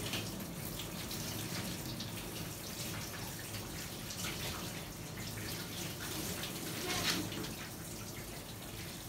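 Water running from a handheld shower sprayer onto a dog's wet coat, rinsing out conditioner and splashing into a stainless steel grooming bath, with a brief louder splash about seven seconds in.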